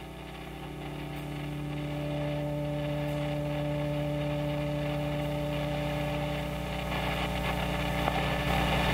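A steady low drone of several held tones with a faint hiss, swelling over the first couple of seconds and then holding.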